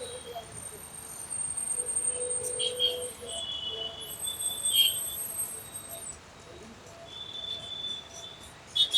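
Busy city street traffic ambience with a few long, steady high-pitched tones over a low background hiss.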